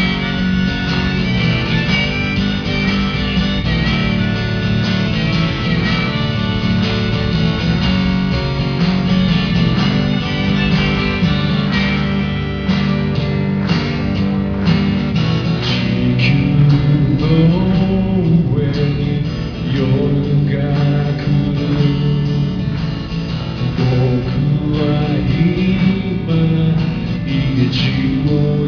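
Live performance of a strummed guitar with harmonica played from a neck holder, and a man singing into the microphone in the second half.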